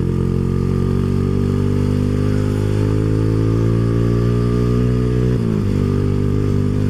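Motorcycle engine heard from the rider's seat, running under way. Its note climbs slowly, then drops sharply about five seconds in and holds steady after that.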